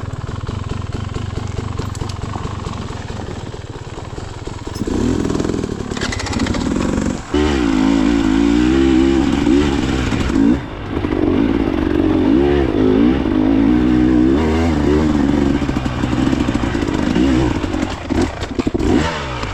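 Dirt bike engine running low and steady, then revving hard from about five seconds in, its pitch rising and falling with the throttle, with brief cuts twice.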